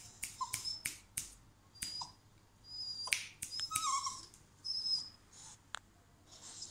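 A puppy on a stainless-steel exam table: many sharp clicks and taps, the claws on the metal as it moves about, with several short high squeaks and a couple of brief falling whines in between.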